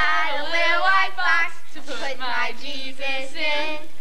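A group of teenagers' voices singing out loudly together in several long, wavering phrases.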